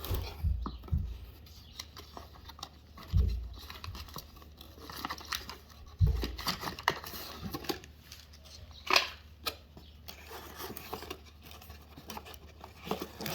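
Packaging being torn and crinkled while small parts are handled, with scattered clicks and three dull thumps spread through it.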